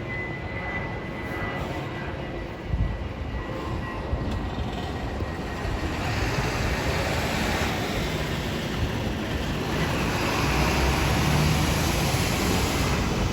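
Airbus A319 airliner's engine and airflow noise: a steady rushing rumble that grows louder from about six seconds in, with a single thump near three seconds.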